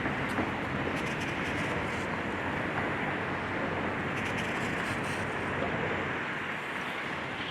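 Steady running of a demolition excavator's diesel engine, with scattered faint clinks and crackles of debris.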